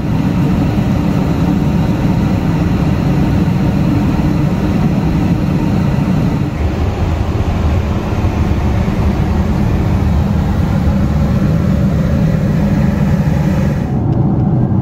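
Steady low roar of a Boeing 747-8i's cabin in flight: engine and airflow noise. The higher hiss thins out near the end.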